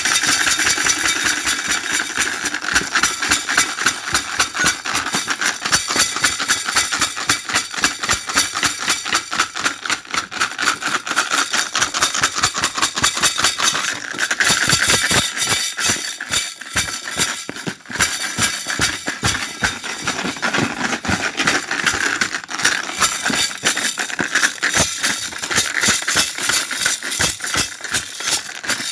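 Washing machine on a spin cycle, shaking hard and rattling with rapid, continuous knocking.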